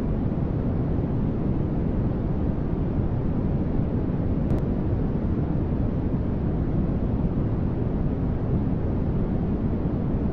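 Steady static-like white noise for sleep masking, even and unchanging, weighted toward a deep, low rush.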